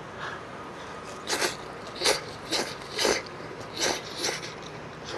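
A person slurping ramen noodles in about six short, noisy pulls, starting about a second in.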